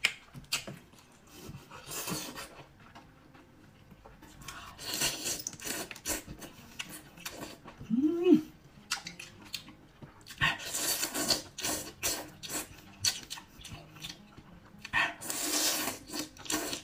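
Close-up eating sounds: wet slurping of sauce and chewing of skewered seafood pulled off a bamboo skewer, coming in three longer slurps with smacking clicks between.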